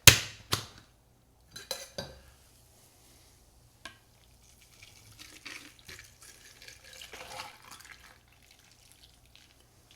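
Metal cocktail shaker tin struck sharply twice, then a few light clinks, then the shaken drink and ice poured out of the tin into a glass.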